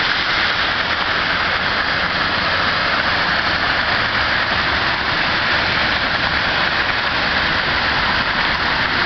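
Waterfall rushing close by: a loud, steady wash of falling water.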